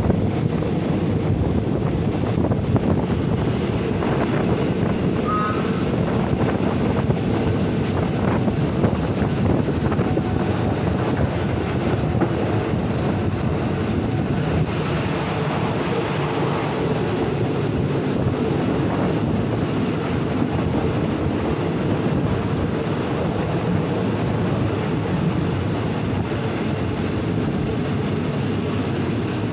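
Passenger train running along the track, heard from on board: a steady rumble of wheels on rails with wind buffeting the microphone.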